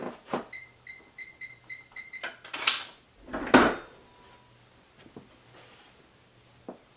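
Electronic keypad lock on a Rhino Metals gun safe giving about six short, even beeps as a code is punched in. A few sharp clicks follow, then one loud, heavy metallic clunk as the handle is turned and the locking bolts draw back.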